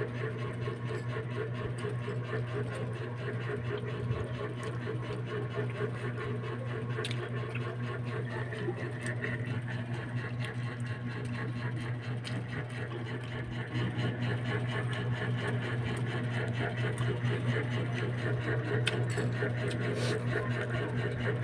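A steady low machine hum that gets a little louder about two-thirds of the way through, with a few faint clicks.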